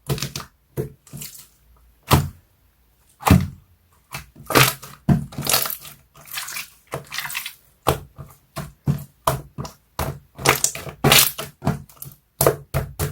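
Hand-played slime being squeezed, poked and stretched, giving a quick irregular run of wet squelches, clicks and small air-bubble pops.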